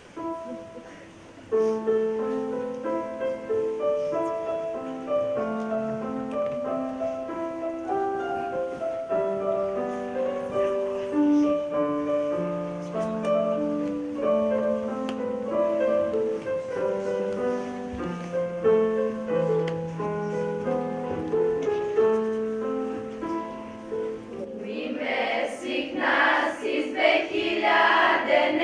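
Slow instrumental introduction of held chords that starts after a brief hush. Near the end a children's choir begins to sing.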